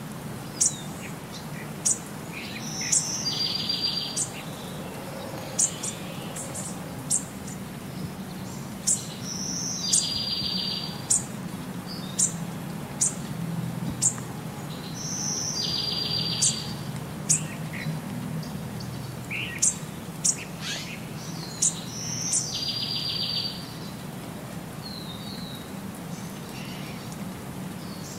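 Birds chirping: sharp high chirps about every second, and a buzzy trill that comes back about every six and a half seconds in the same shape, a short recording played in a loop. A low steady hum lies under it.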